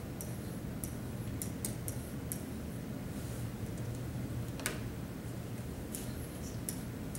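Pen tip tapping and scratching on an interactive whiteboard as an equation is written: faint, irregular high clicks, one a little louder about two-thirds of the way through, over a steady low hum.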